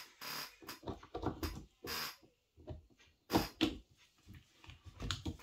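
Irregular clicks, taps and knocks of handling: brass .45 ACP cartridges turned over in gloved hands and handled on a tabletop beside a 1911 pistol.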